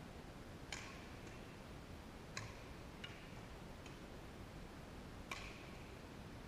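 Badminton rackets hitting a shuttlecock during a rally: five sharp hits, each with a brief ringing ping from the strings, spaced unevenly over about five seconds, with two quicker, fainter ones in the middle.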